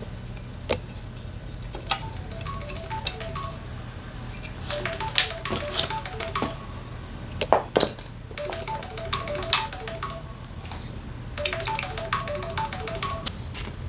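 Background music: a light melody of short notes played in repeated phrases, with occasional sharp clinks over a low steady hum.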